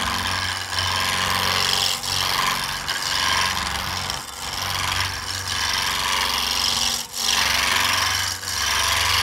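Spindle roughing gouge cutting a spinning maple blank on a wood lathe: a continuous shaving noise over the lathe's low hum, dipping briefly every second or so as the gouge is drawn back and forth along the work.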